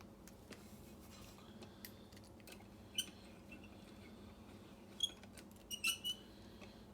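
A few small, sharp metallic clicks and taps from a lock cylinder being handled and set into a bench vise: one about three seconds in, another about five seconds in, and a quick cluster just after.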